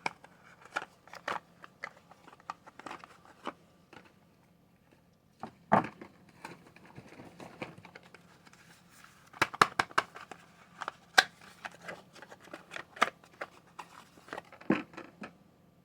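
Soap packaging being unwrapped by hand: irregular crinkles, tears and sharp taps, with a quiet pause about four seconds in.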